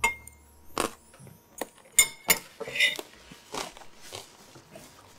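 Metal fork clinking and scraping against a ceramic bowl while eating, a string of short, separate clicks and knocks, the first with a brief ring.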